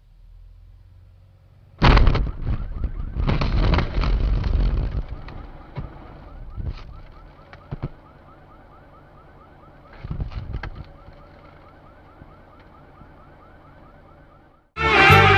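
Car crash heard from inside the dashcam car: a sudden loud impact about two seconds in, then crunching and clattering for a few seconds as the car runs off the road into a fence. After that a fast, steady electronic chirping repeats, with another short clatter around ten seconds.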